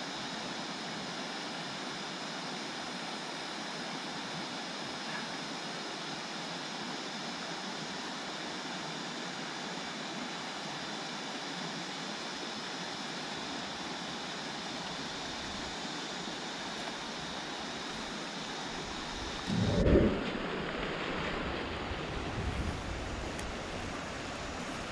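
Steady rush of running creek water. About twenty seconds in there is a brief low thump on the microphone, and the rushing sound changes after it.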